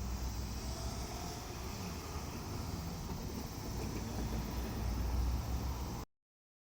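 Steady low vehicle rumble over an outdoor hiss, swelling slightly before it cuts off suddenly about six seconds in.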